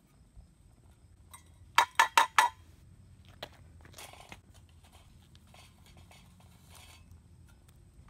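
Metal rod skimming slag off molten zinc, with four quick, ringing metallic taps about two seconds in as it is knocked against metal, then fainter scrapes and knocks.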